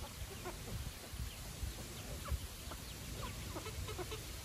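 Domestic chickens clucking while they peck at feed, many short scattered clucks from several birds, with a few dull low thumps.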